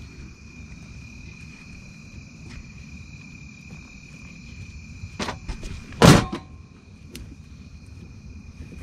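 A few light clicks and knocks, then about six seconds in a loud, sharp clunk, as a gloved hand works at the fuel drain behind an open access door on the underside of an old light aircraft. A steady insect trill runs underneath.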